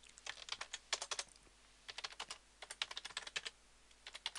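Computer keyboard typing in quick runs of keystrokes, with short pauses between the runs.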